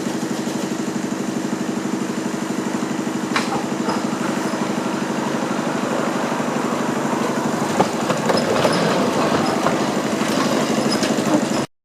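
Small narrow-gauge diesel locomotive engine running steadily, with a few sharp clicks; the sound cuts off abruptly near the end.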